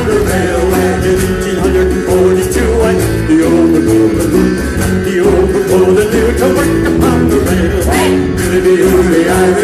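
Live folk band playing an upbeat song on acoustic guitars, bass and percussion, with a steady beat.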